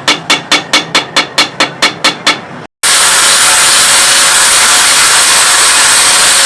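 Rapid, evenly paced hammer blows on steel, about five a second with a metallic ring, from forging the knife blade. These cut off abruptly, and a loud, steady, high-pitched grinding hiss from the blade being ground or sanded follows.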